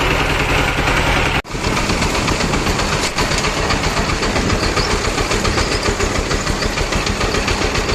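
Motorcycle engines running through floodwater, with water splashing, a steady dense pulsing; the sound drops out briefly about one and a half seconds in and comes straight back.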